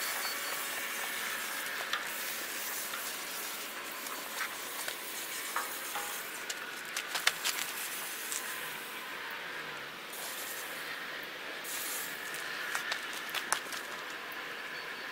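Compressed-air paint spray gun hissing on and off in short passes while touching up a fresh black coat, with a few light clicks.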